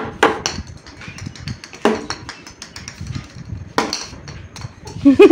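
About four sharp knocks, with fainter taps and clicks between them, from a toddler's plastic cricket bat striking the ball and the concrete floor during a backyard cricket game. A child starts to giggle at the very end.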